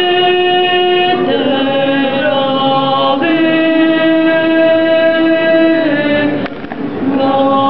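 A choir of women singing a cappella in long held chords, moving to new notes about a second in and again about three seconds in. The singing stops for about a second after six seconds, with a faint click in the gap, then resumes near the end.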